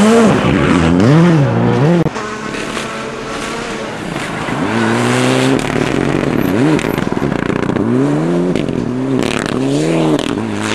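Rally car engines revving hard, the pitch climbing and falling again and again as the drivers shift and lift through the corners. The sound drops about two seconds in, where one car gives way to the next.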